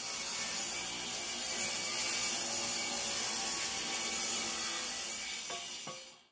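Table saw ripping an old cedar board into a narrow strip: a steady run of blade noise that fades out near the end.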